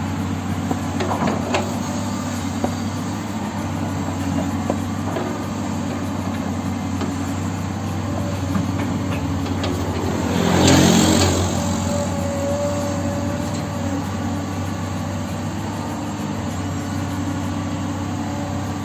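Excavator engine running steadily, with a few sharp clanks in the first five seconds and a louder swell of noise about ten seconds in.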